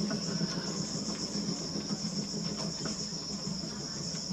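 Crickets trilling in a steady, unbroken high-pitched chorus, over a low steady hum.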